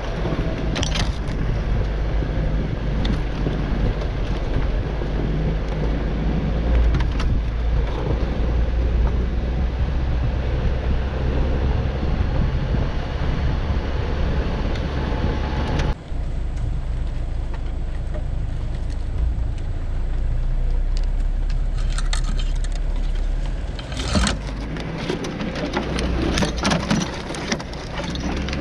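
Four-wheel-drive vehicle driving slowly up a rough snowy trail: steady low engine and drivetrain rumble with road noise, heard from a hood-mounted camera. Several sharp knocks and scrapes come in the last few seconds.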